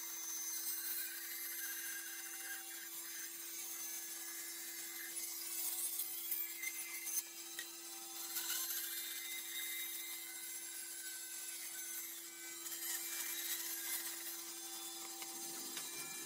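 Bandsaw running with a steady hum while its blade cuts a curved line through a wooden board, the cutting hiss swelling and easing as the board is steered along the curve.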